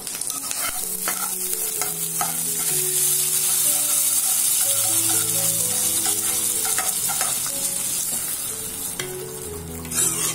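Hot oil tempering of mustard seeds, dried red chillies and curry leaves sizzling as it is poured into a clay pot of yogurt-and-buttermilk curry, the hiss easing off over the seconds. Near the end a spoon knocks and stirs it through the curry.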